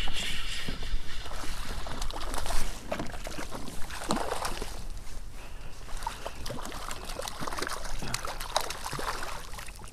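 Hooked speckled trout thrashing at the water's surface beside a kayak: irregular splashing and sloshing, with a stronger splash about four seconds in.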